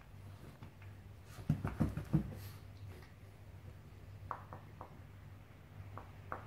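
A small dog scuffling with a stuffed toy on a padded mat: a quick run of soft thumps about one and a half seconds in, then a few light clicks later on.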